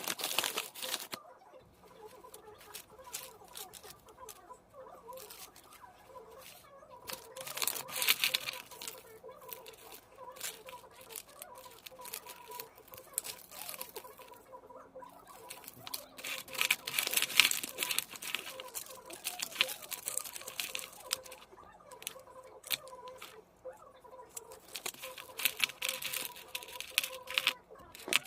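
Packaging being handled and unwrapped: crinkling and tearing with scattered small clicks, louder about 8 seconds in and again around 16 to 18 seconds in, over a faint steady hum.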